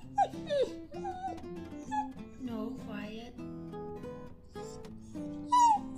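Norwegian Elkhound puppy vocalising in short whines that slide down in pitch, several times, loudest right at the start and about a second before the end, over acoustic guitar music.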